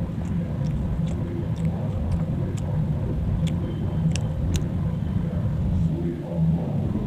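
A person eating and chewing paratha, with scattered short mouth clicks, over a steady low rumble.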